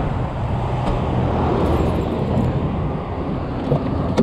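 Steady road traffic on a busy suburban road: cars driving past with a low engine hum. A couple of light knocks near the end.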